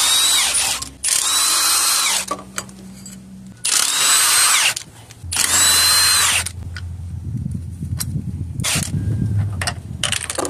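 A power wrench run in four bursts of about a second each, every burst ending in a falling whine as the tool spins down, backing out the 14 mm engine-mount bolts. Quieter handling noise and light clicks follow near the end.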